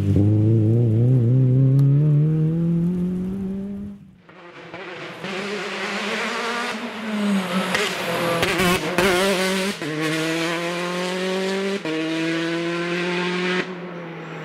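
Rally cars at full throttle. First a Renault Clio's engine pulls hard in one long rising note. After a cut at about 4 s, a Citroën DS3 rally car's engine rises, dips as it lifts off with a few sharp crackles, then climbs again with upshifts near the end.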